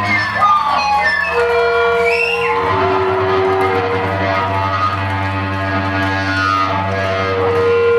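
Live industrial metal band music played loud: a low, steady drone with long held notes above it, with a few crowd shouts over it in the first seconds.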